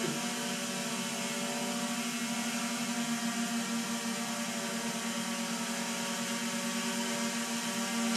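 DJI Air 2S quadcopter hovering close by, its propellers giving a steady whine.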